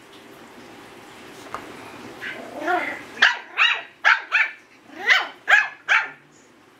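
Yorkshire terrier puppy giving a run of seven sharp, high-pitched yapping barks, starting about three seconds in, with a softer grumbling call just before.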